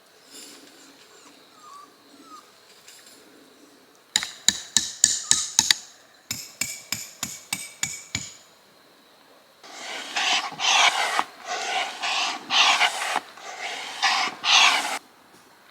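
Two quick runs of sharp metallic taps, about five a second, then a series of regular rasping strokes, roughly two a second, from hand work with tools.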